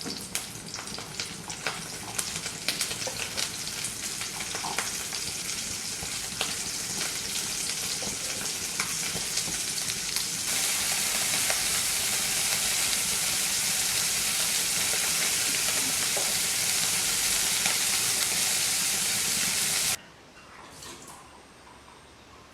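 Food frying in hot oil in a pan: a crackling sizzle that grows louder and about halfway turns into a loud, steady sizzle, then cuts off suddenly near the end.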